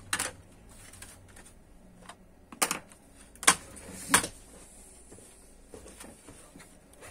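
A few sharp plastic clicks and taps from a laptop's parts being handled during disassembly, about four distinct ones in the first half, then only faint handling noise.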